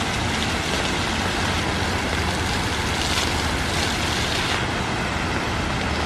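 Steady rush of splashing water from fountain jets, over a steady low rumble.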